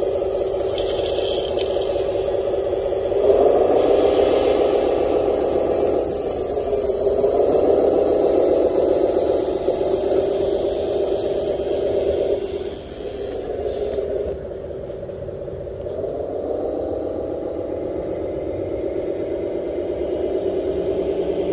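Radio-controlled 8x8 dump truck unloading: a steady motor and hydraulic pump whine that changes pitch several times, rising about three seconds in, dropping near the middle and rising again later, with gravel rattling and scraping out of the tipped bed.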